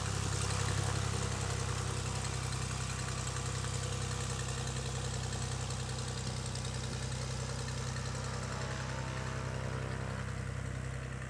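Light single-engine propeller aircraft's piston engine running steadily at low power while taxiing: a constant low drone that begins to fade near the end.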